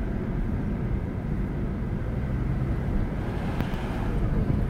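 Steady low rumble of a car on the move, tyre and engine noise heard from inside the cabin.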